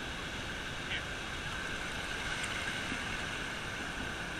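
Steady rushing wash of ocean surf mixed with wind, with no clear rhythm or break.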